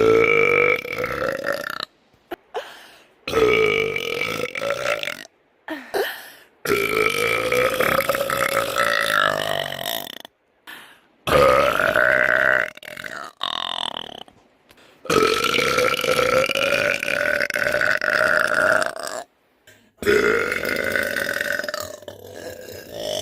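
A woman's long, drawn-out burps, about six one after another, each lasting two to four seconds, with short silent breaks between them.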